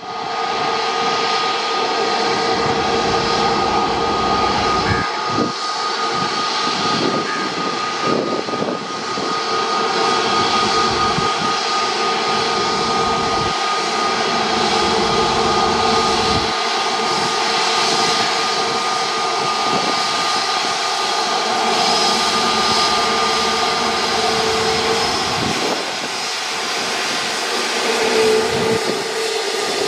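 Jet airliner's turbofan engines running with a steady whine over a broad rushing noise.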